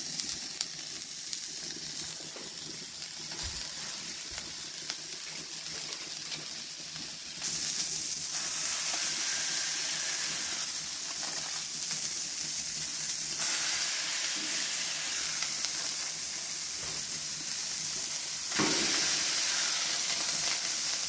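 Beef mince sizzling and frying on a hot flat-top griddle plate, a steady hiss that grows louder about seven seconds in, with a brief louder burst near the end.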